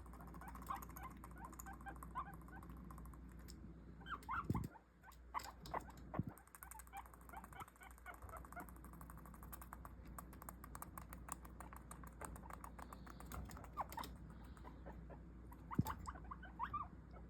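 Guinea pigs making short, soft squeaks in clusters, with scratchy clicking and rustling throughout and a few louder knocks.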